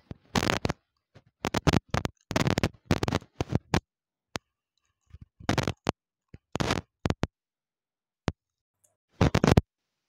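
Crunching on white chalk-like sticks right at a clip-on microphone: bursts of crisp crackling bites in short clusters, with pauses between them and a couple of single sharp snaps.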